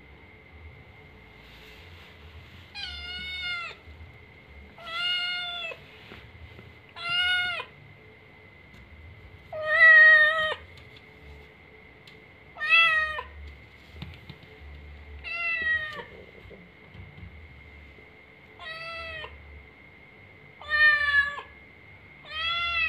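A calico kitten meowing over and over, about nine meows roughly two seconds apart, each under a second long and dropping in pitch at the end: it is asking for the door to be opened to let it into the room.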